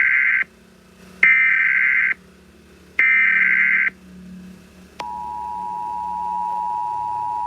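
Emergency Alert System signal: three short bursts of the warbling digital SAME header tones about a second apart, the first already under way, then the steady two-tone EAS attention signal starting about five seconds in. This is the sequence that opens an emergency alert broadcast.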